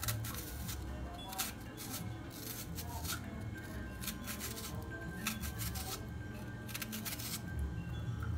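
Kitchen knife slicing through an onion held in the hand, a crisp cut about every second, over background music.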